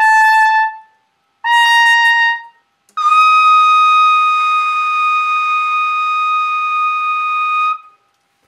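Unaccompanied solo trumpet ending a piece: a note that stops about a second in, a second short note, then a high final note held steadily for about five seconds before it cuts off.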